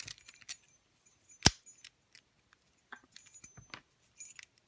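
Lock-picking rake and tension wrench clinking and scraping in a padlock's keyway, small metallic ticks and jingles, with one sharp loud metallic click about a second and a half in.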